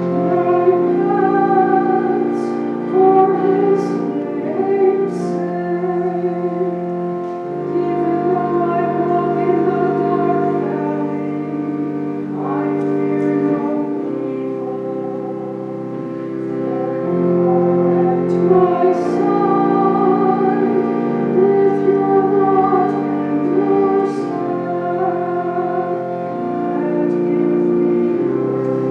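A solo cantor singing the responsorial psalm in a slow, sustained melody with vibrato, over held organ chords.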